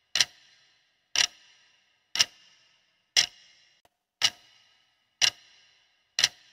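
Clock-tick sound effect counting down the seconds of a quiz timer: seven sharp ticks, one a second, each with a short ringing tail.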